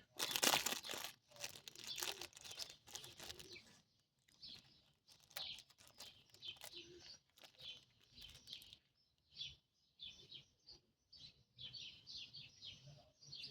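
Plastic packaging rustling and crinkling as items are handled and unpacked, denser for the first few seconds, then in scattered brief crackles.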